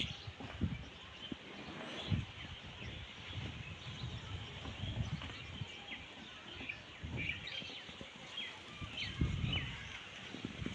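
Several small birds chirping with short, scattered calls over a steady outdoor hiss, with irregular low rumbles.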